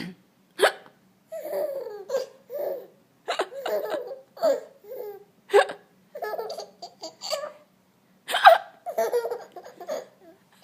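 A small child hiccuping and giggling: several sharp, short hiccups, each followed by a little burst of laughter.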